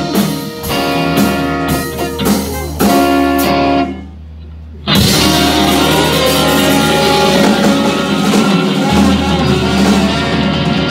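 Live soul-funk band with trumpet, saxophone, electric guitars, bass and drums playing. About four seconds in the band drops out for just under a second, then comes back in together.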